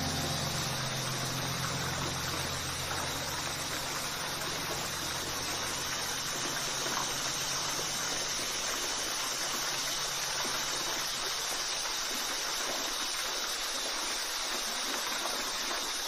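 Waterfall: a steady, even rush of falling water. Low, held notes of background music fade out over the first several seconds, leaving only the water.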